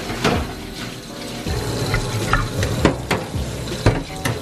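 Tap water running into a pot while rice is washed in it by hand, grains and water swishing, with scattered short clicks and knocks from the pot against the steel sink.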